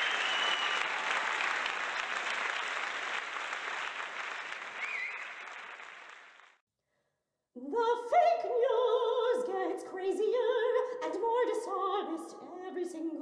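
Audience applause fading out over about six seconds, then a second of silence, then an opera recording begins: a melody with wavering vibrato over accompaniment.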